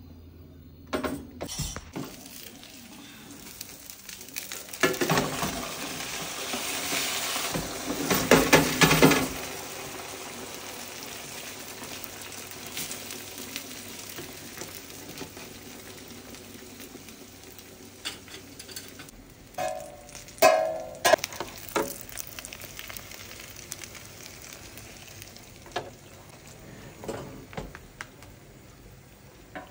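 Yufka börek cooking in a shallow round anchovy pan, the oil sizzling steadily. The sizzle swells loudly about five seconds in for some four seconds, and a few sharp knocks come about two-thirds of the way through.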